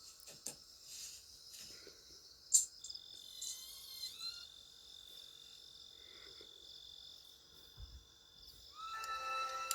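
Crickets chirping steadily at night, with a few faint clicks. Near the end a louder held tone of several pitches sounding together starts and carries on.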